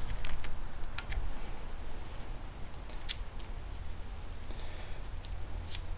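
Screwdriver working screws on a .22 rifle's metal parts: a few sharp, separate clicks of the steel tip and small parts, about a second in, about three seconds in and near the end, over a low steady hum.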